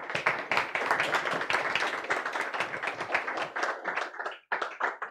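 Audience applauding at the end of a talk: dense clapping that thins to a few scattered claps and stops near the end.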